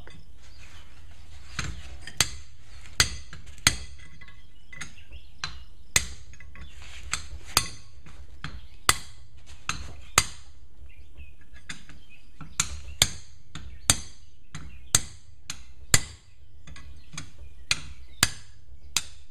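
A hammer striking a metal tool held against the stuck gear on a MerCruiser Alpha One outdrive's input shaft, trying to knock the gear loose. The taps come in a long, irregular series of sharp metal-on-metal strikes, roughly one a second, each with a short ring.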